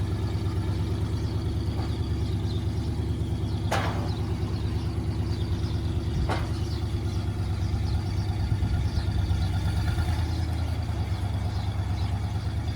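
Car engine idling steadily, with two short sharp clicks about four and six seconds in.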